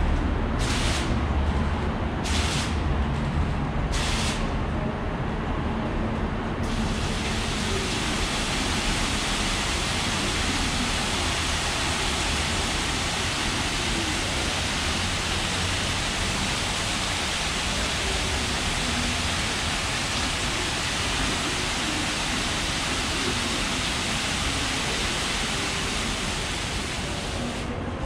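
Computer-controlled falling-water display (a 'Space Printer' water clock) dropping water into its basin. First come a few short bursts of splashing as printed patterns fall. From about seven seconds in there is a steady hiss of falling water curtains, which dies away near the end.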